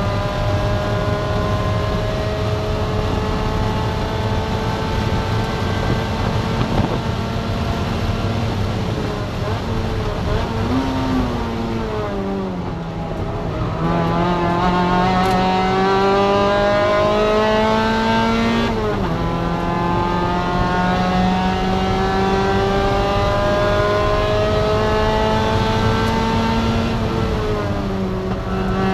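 Spec MX-5 (NC Miata) 2.0-litre four-cylinder engine under racing load, revs climbing steadily in each gear. A little before halfway it blips and drops through a downshift, then climbs again. It steps down at an upshift about two-thirds in and eases off near the end.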